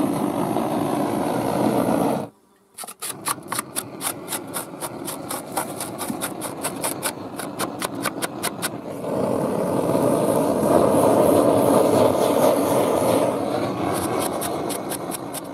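A gas torch burner runs with a steady rushing sound for about two seconds. After a short gap, a hand scraper rasps over singed pig skin in quick, regular strokes, several a second, taking off the bubbled outer skin layer. A steady rushing sound returns for several seconds, and then there are more scraping strokes near the end.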